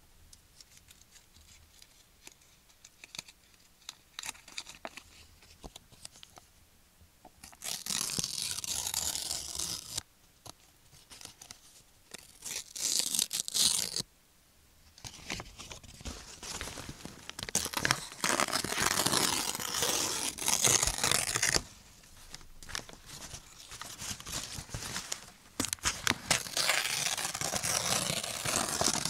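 Paper being torn and crumpled in several rustling bursts of a few seconds each, after a few quiet seconds with only faint crackles.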